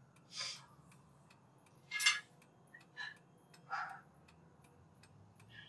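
A woman crying quietly: a handful of sniffles and shaky sobbing breaths at uneven intervals, the loudest about two seconds in, over the faint steady ticking of a clock.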